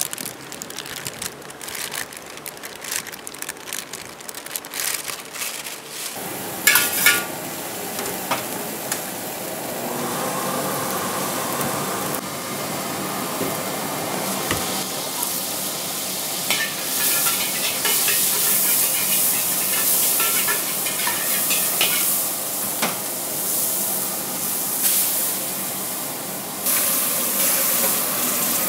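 Sharp clicks and clanks of metal utensils in the first several seconds, then oil heating and sizzling in a metal wok with a steady crackling hiss that builds, jumping suddenly louder near the end.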